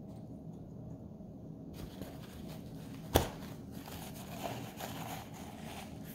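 Paper towels rustling and crinkling as sheets are handled and pushed into a glass measuring cup of water. There is a single sharp snap about three seconds in, the loudest sound.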